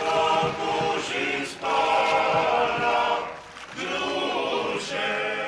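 A choir singing held chords in three phrases, with short breaks between them, as background music.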